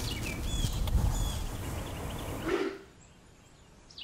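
Small birds chirping in short repeated calls over a low rumble of outdoor background noise. Both drop away almost to quiet about three seconds in.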